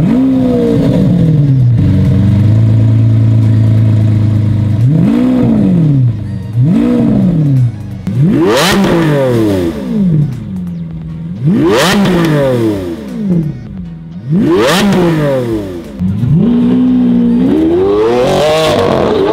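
Lamborghini Aventador's V12 engine revving: it is held at raised revs for a few seconds, then blipped sharply about five times, each rev rising and falling. Near the end it rises again as the car pulls away.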